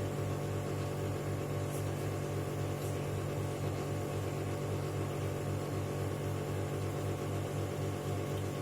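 A steady low hum with an even pulse several times a second.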